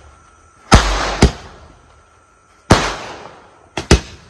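Aerial fireworks bursting overhead: five sharp bangs in three groups. There are two about half a second apart in the first second and a half, one a little past halfway, and a quick double near the end, each followed by a short fading tail.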